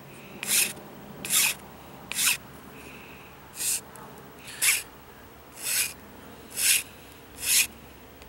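Half-round file scraping across the end of a 3/8-inch poplar dowel, cutting a half-moon nock in a crossbow bolt: eight short separate strokes, roughly one a second, with a short pause near the middle.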